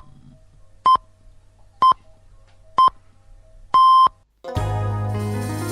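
Radio time-signal pips: short beeps, all on one pitch and a second apart, then a longer final pip that marks the hour. About half a second later, piano music starts.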